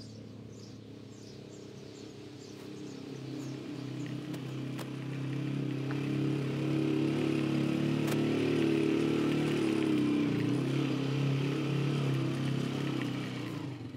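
A small motorcycle's engine approaching, growing louder from a few seconds in, with a brief dip in pitch about ten seconds in.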